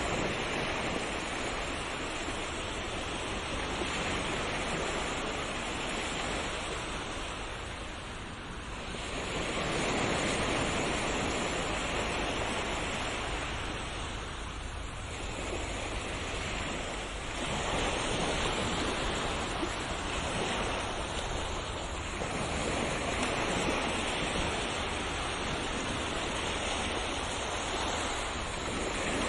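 Ocean surf: waves breaking and washing in as a continuous rush that swells and ebbs every several seconds.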